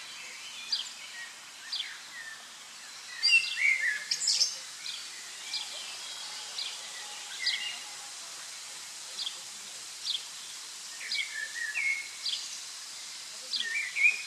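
Small songbirds calling: short, high, falling chirps repeating about once a second over a steady faint hiss, with a louder, busier burst of song about three seconds in and again near the end.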